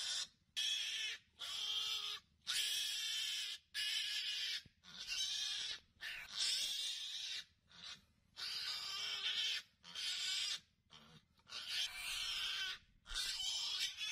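Pig squealing in a string of hoarse, rasping cries, about one a second, separated by abrupt silent gaps, while held in a Komodo dragon's jaws.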